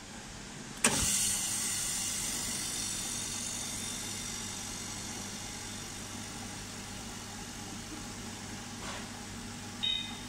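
Tabletop vacuum chamber sealer: the lid shuts with a thump about a second in and the vacuum pump starts straight away, running with a hum and a hiss that slowly fades as the chamber is pumped down. A short electronic beep near the end.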